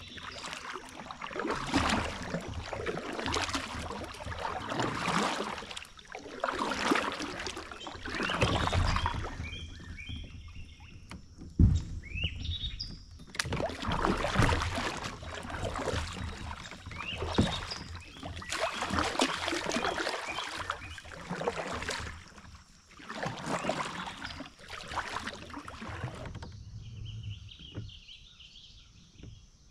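Kayak paddle strokes, the blades dipping and pulling through the water every second or two, with one sharp knock a little before halfway. The strokes stop near the end, leaving birds chirping.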